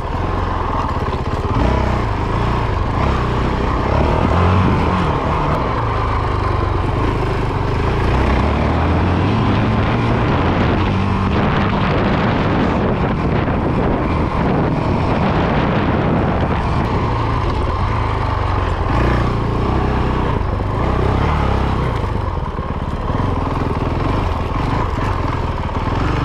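Honda CRF450RL's single-cylinder four-stroke engine running as the bike is ridden, heard from the bike itself, its note rising and falling with the throttle.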